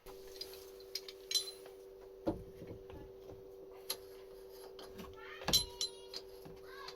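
A few light metallic clinks and knocks, as of small metal parts being handled, over a steady low hum.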